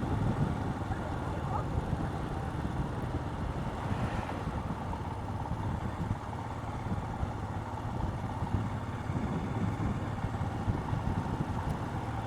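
Royal Enfield Himalayan's single-cylinder engine running steadily while the motorcycle is ridden.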